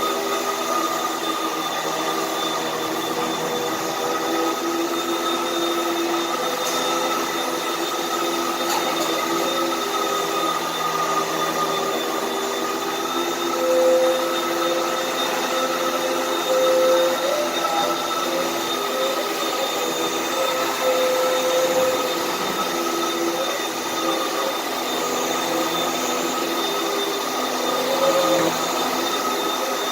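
Vacuum cleaner running steadily with a constant motor whine while it sucks up dirt, with a few brief louder surges.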